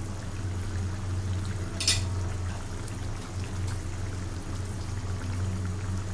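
Beef curry with potatoes simmering in a frying pan, its thick gravy bubbling with small pops over a steady low hum. One brief sharp sound about two seconds in.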